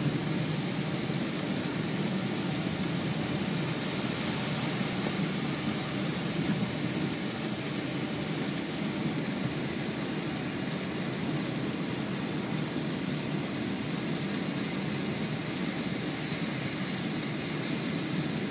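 Heavy rain on a moving car and its tyres on the flooded highway, heard from inside the car: a steady, dense rushing noise.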